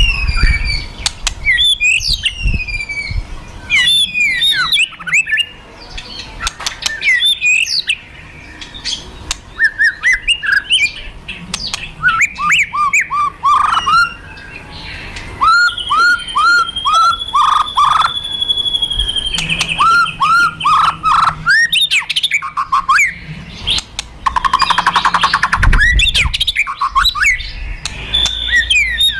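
White-rumped shama (murai batu) calling in an aggressive 'fighter' style: rapid runs of short, sharp, hooked whistled notes and down-sweeping calls, with a longer held whistle midway. Near the end comes a harsh rattling burst, the crackling 'kretekan' that keepers play to rouse other shamas.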